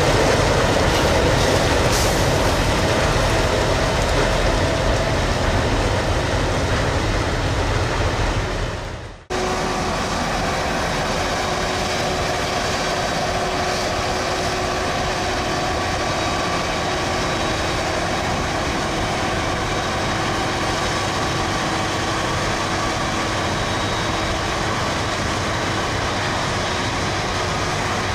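Heavy maize-harvesting machinery running steadily. About nine seconds in the sound dips and cuts to a slightly quieter steady machine noise with a faint even hum.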